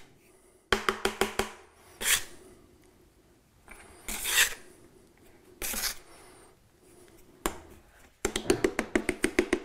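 Steel drywall knife scraping and chopping quick-set joint compound powder and water together on an aluminium plaster hawk, mixing it into mud. The scrapes come in scattered strokes, then near the end they settle into a fast, even rhythm of about five or six strokes a second.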